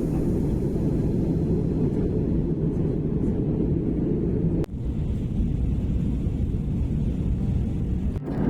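Steady low rumbling noise, broken briefly about halfway through.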